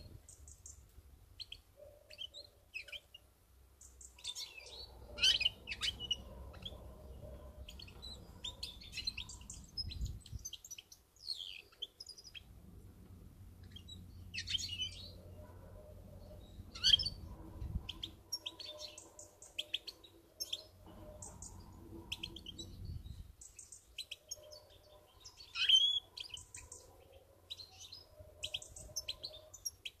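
European goldfinch singing in bursts of quick, high twittering and chirping notes, with a few louder notes standing out.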